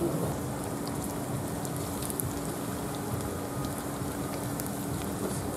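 A slab of pressed rice deep-frying in a pot of hot oil: steady dense sizzling and bubbling with small scattered pops, over a faint steady hum.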